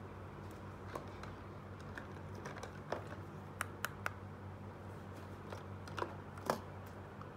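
Small plastic toy pieces being handled and set down: scattered light clicks and taps, three in quick succession in the middle and the loudest near the end, over a steady low hum.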